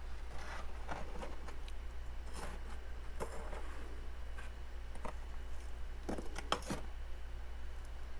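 Freezer frost being scraped and handled: scattered crisp clicks and short scratches, a close cluster of them about two-thirds of the way in, over a steady low hum.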